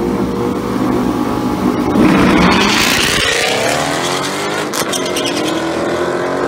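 Two race cars launching off the line in a drag race and accelerating away. Their engines are held at revs, then surge loudly about two seconds in, and the pitch climbs steadily as the cars pull away.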